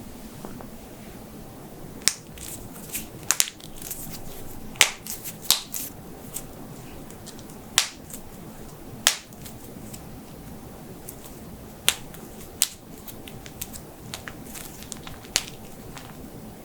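Human joints cracking: about fifteen sharp pops and clicks at irregular intervals, some in quick pairs.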